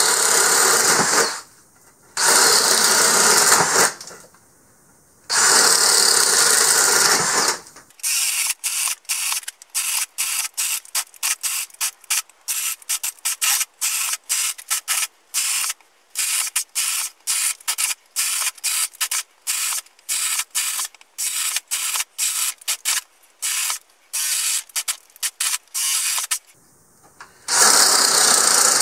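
DeWalt Atomic 20-volt brushless drill boring 7/8-inch holes with a spade bit through a pine 2x4. It runs in three long drilling bursts with short pauses between them. About eight seconds in it turns into a rapid, choppy run of very short drilling bursts, with one more full burst near the end.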